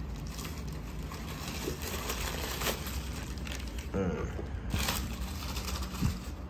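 Tissue paper rustling and crinkling as it is pulled back from a sneaker in a cardboard shoe box, with a few sharper crackles.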